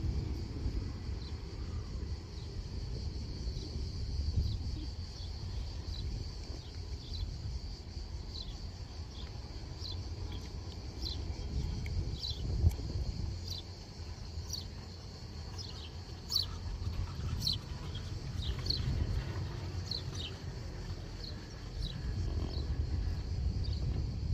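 A steady high buzzing chorus of cicadas with many short chirps over it, above a low rumble of wind on the microphone. A brief knock about halfway through, as the chair runs over a lift tower's sheaves.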